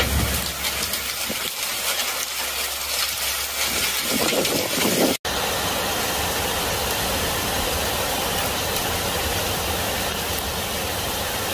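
Hail and rain pouring down in a dense, steady hiss, with scattered sharp taps of hailstones in the first few seconds. After a brief break about five seconds in, the hail falls on as an even rush onto leaves and ground.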